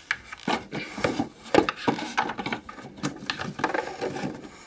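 Plastic Breyer model horse being handled and moved across a hard surface, its hooves and body giving irregular light taps and knocks, a few a second.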